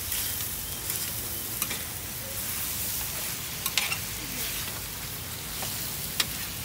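Meat sizzling on a flat griddle while two metal spatulas stir and flip it, with a steady hiss and several sharp clicks and scrapes of the spatulas against the hot plate.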